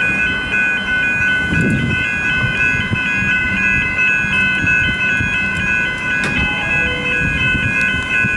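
Railway level crossing warning bells ringing in a rapid, repeating alternating pattern while the crossing is active, over a low rumble.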